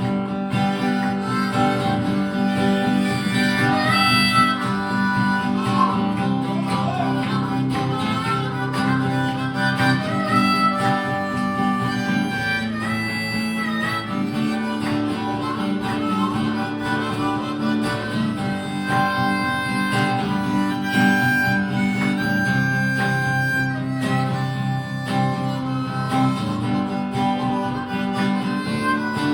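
Instrumental break of a country song: a harmonica playing a melodic solo with sliding notes over a strummed acoustic guitar.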